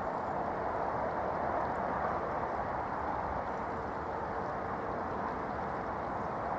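Steady, muffled rushing of a river flowing over rocks.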